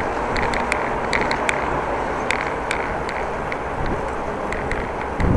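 Riding a bicycle on the road: a steady rush of tyre and air noise with light, irregular ticks and rattles from the bike.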